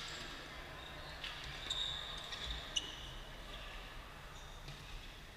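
A badminton rally: a few sharp hits of rackets on the shuttlecock, with sports shoes squeaking briefly on the court floor in the middle.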